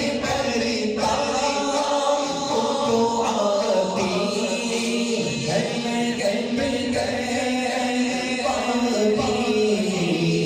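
Unaccompanied male voices chanting a naat. A lead voice sings long, wavering held notes over a steady low hummed drone, and the drone drops lower near the end.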